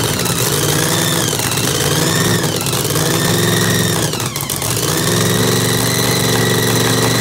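Supercharged V8 drag-boat engine idling with a loping, surging idle: the revs sag and pick back up twice around the middle, with a high blower whine that rises and falls along with the engine.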